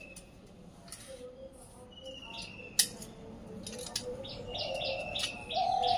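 Metal tined garden rake scraping and knocking through loose, rotted cow-dung compost, with a sharp click near the middle as it strikes. Birds chirp throughout, with a quick run of short chirps near the end.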